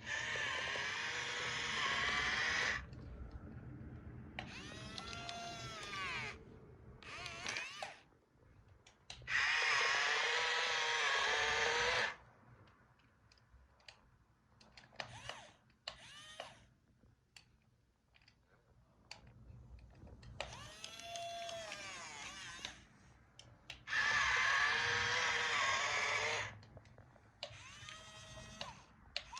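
A high motor whine that comes in loud bursts of two to three seconds, four times, with shorter, quieter whines between them that rise and fall in pitch.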